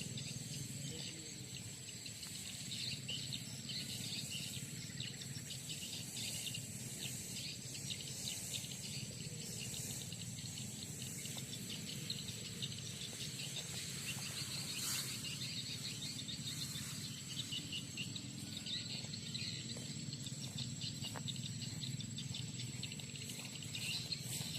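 Insects chirping, with a steady high-pitched trill and rapid pulsing chirps over a low background hum.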